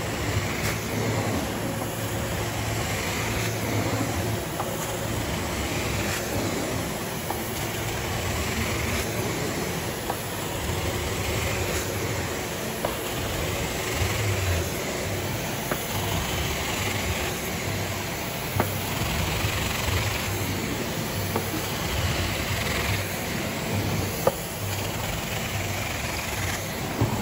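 Carpet extraction wand and its vacuum running: a steady rush of suction and spray hiss over a low machine hum. The rush swells with each stroke of the wand across the carpet, every two to three seconds.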